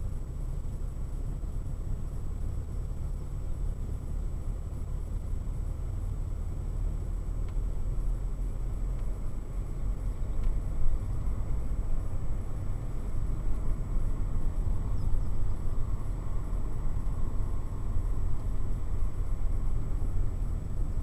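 A car driving at low speed, heard from inside the cabin: a steady low rumble of engine and tyres on pavement, with a thin steady high whine running under it.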